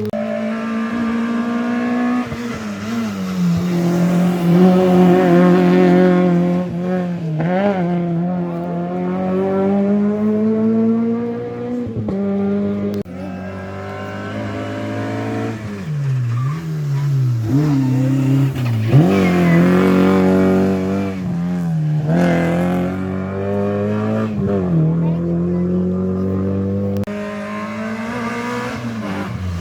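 Historic rally car engine at full throttle on a special stage, revs climbing and dropping again and again with the gear changes and lifts, with some tyre squeal.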